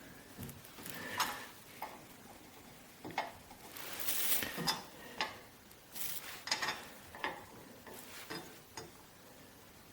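Irregular small metallic clinks, clicks and short scrapes of bolts and nuts being fitted and worked into a saw handle, about a dozen sounds spread unevenly.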